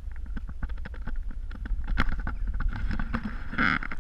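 Driver's door of a BMW E90 being swung open in hard frost, amid irregular crunching and clicking from footsteps in snow and rubbing on the camera, over a low rumble. A brief squeak comes about three and a half seconds in.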